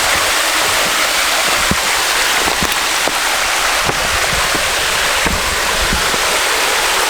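Creek waterfall pouring into a rock pool: a steady, loud rush of water.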